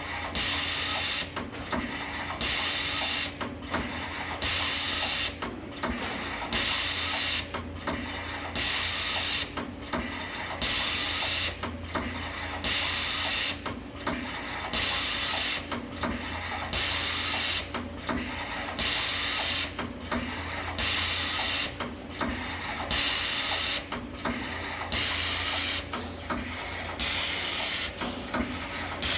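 Amada CTS-900NT CNC tapping machine cycling: a sharp hiss of compressed air about every two seconds, each lasting under a second, over a steady low machine hum.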